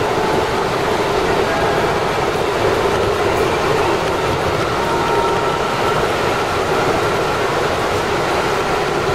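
Keikyu electric commuter train running at speed, heard from the driver's cab: a steady rumble of wheels on rail with faint thin whines coming and going.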